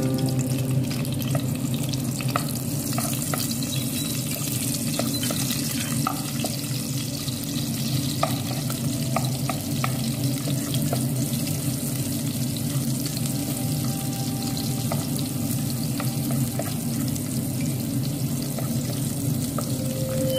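Sliced red onions sizzling in hot oil in a nonstick pot, stirred with a wooden spatula that clicks and scrapes against the pot now and then. A steady low hum runs underneath.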